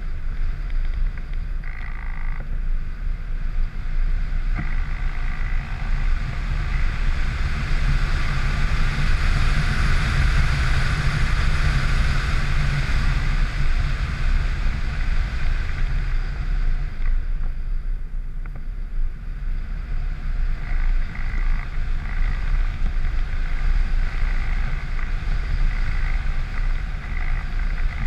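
Wind rushing over the microphone of a camera carried on a small aircraft in flight, over a steady motor-and-propeller drone. The drone swells about a third of the way in and dips briefly about two-thirds of the way through.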